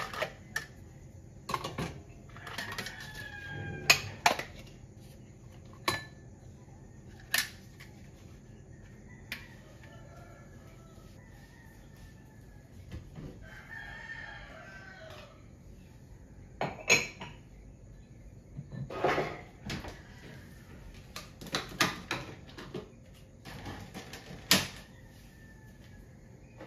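A rooster crowing twice, once a few seconds in and again around the middle, among scattered sharp clinks and knocks of kitchen work with dishes and utensils.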